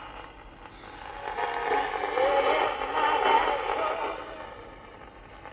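Long-wave AM broadcast of Polish Radio Program 1 playing from the small speaker of a Unitra Eltra Donald MOT-763 pocket transistor radio. It is a voice over a steady hiss, thin-sounding with no deep bass or high treble. It swells in the middle and fades near the start and end, with a couple of faint clicks as the radio is handled.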